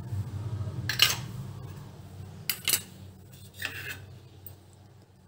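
Stainless-steel bowls clinking and knocking a few times, the loudest about a second in, as chopped coriander is tipped from a small steel bowl into the mixing bowl of dry batter ingredients.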